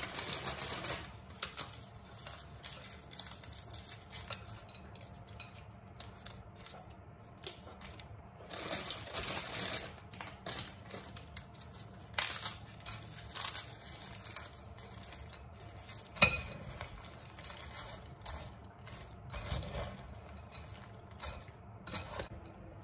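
Crisp petit beurre biscuits snapped by hand into a glass bowl, in several bursts of dry snapping and crumbling. One sharp clink of a metal spoon on the glass bowl past the middle, and stirring through the soft biscuit and pudding mix near the end.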